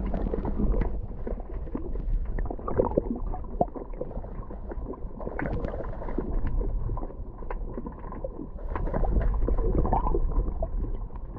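Underwater sound picked up by a submerged camera: a muffled rumble of moving water with scattered clicks and crackles.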